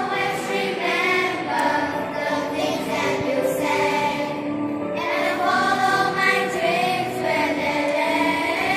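A group of children singing a song together in unison over musical accompaniment.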